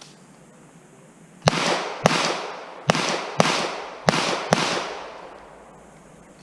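Six pistol shots fired as three quick pairs, each shot trailing off in an echo.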